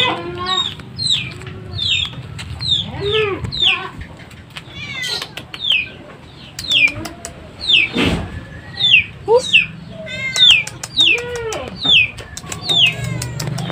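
Chicks peeping over and over, short high falling notes about twice a second, while a cat meows a few times. One sharp knock about eight seconds in.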